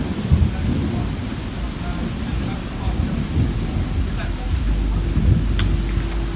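Heavy tropical downpour with thunder rumbling low under the rain. A sharp click comes near the end, and a steady low hum joins the rain shortly before it.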